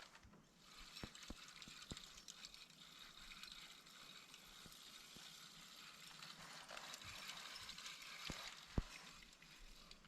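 Fishing reel clicking in a fast, fine ratchet as a hooked trout is played and reeled in. A few sharp knocks come through it, the loudest near the end.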